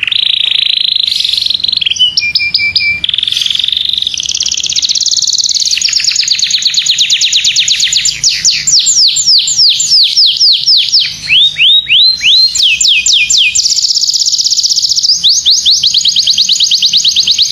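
Domestic canary singing a long unbroken song of fast trills and rolls, with long runs of rapid, repeated downward-sweeping notes in the second half.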